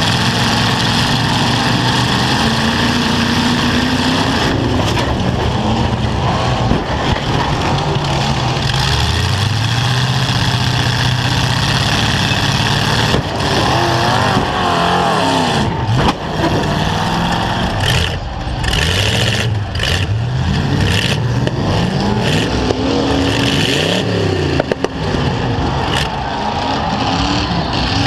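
Several demolition derby trucks' engines revving hard at once, their pitches repeatedly rising and falling as they accelerate and back off, over a steady loud din.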